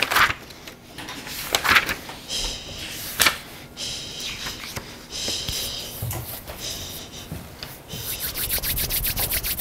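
Paper pages turning, then several short stretches of writing scratching on paper. Near the end comes about a second and a half of rapid rubbing of hands together.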